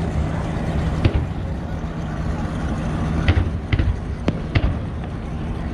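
Aerial fireworks bursting: a string of sharp bangs and pops, one about a second in and a quicker cluster of four or so past the middle, over a steady low rumble.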